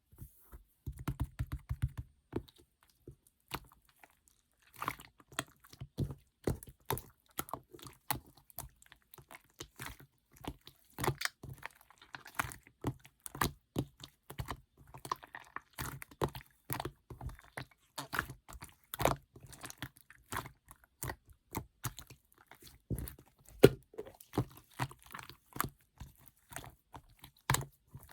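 Mixed slime being squished, stretched and poked by hand, giving dense, irregular sticky clicks and pops. There is a short pause about two to four and a half seconds in.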